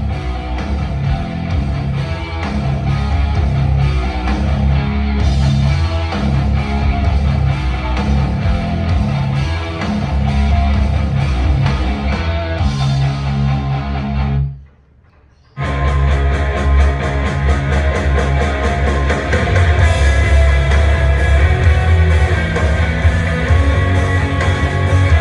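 A rock song with electric guitar and heavy bass played loud over a loudspeaker. It cuts out for about a second around the middle, then plays again with fuller bass.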